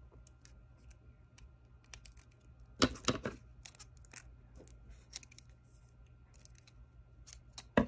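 Scissors cutting through tape-covered paper: a quick snip or two about three seconds in, with faint clicks and crinkles of tape and paper being handled around it. Another sharp sound comes right at the end.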